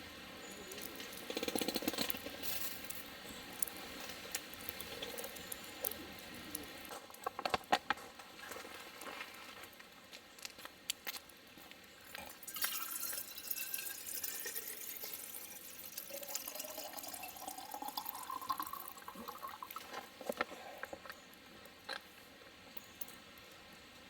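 Liquid being poured into a container, its note rising as the container fills, among scattered small clicks and knocks.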